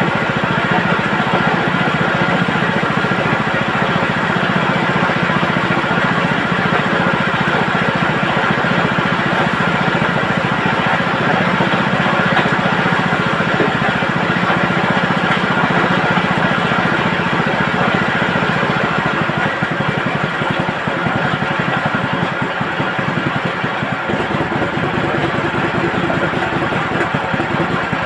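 Chicken plucking machine running steadily, its motor driving the spinning drum in a continuous mechanical drone that eases slightly in the last third.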